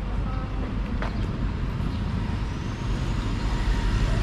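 Street traffic: the steady low rumble of vehicle engines running, with a single click about a second in.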